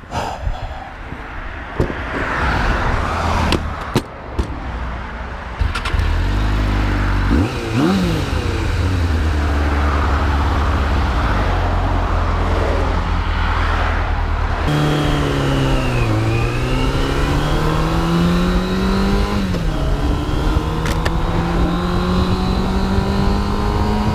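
Motorcycle engine running under way, its pitch climbing steadily as it accelerates, with a sharp drop about two-thirds through, like an upshift, before it climbs again. Rough rushing noise, like wind, fills the first few seconds before the engine comes up strongly.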